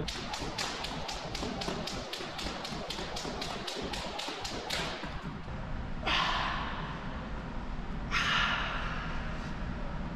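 A man breathing out hard twice, about two seconds apart, each breath about a second long, while curling dumbbells. Before that, a fast even run of light ticks, about six a second, stops about five seconds in.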